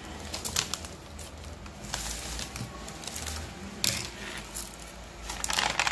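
Crinkling of a diamond-painting canvas's plastic cover film as it is peeled and rolled back by hand, with a few sharp clicks and clinks of tools and a plastic bead tray being handled. The crinkling is loudest near the end.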